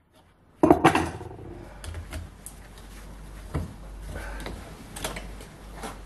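Metal hand tools clanking, clicking and scraping against a thin tin can clamped in a steel bench vise, as the tin is gripped to be torn off a cast aluminium slug. A sharp double clank comes about half a second in, then scattered clicks and scrapes.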